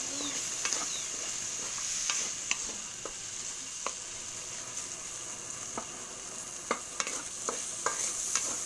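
Sliced sausage and tomatoes sizzling in oil in an aluminium wok, with a steady hiss, while a wooden spatula stirs them, scraping and knocking against the metal pan now and then.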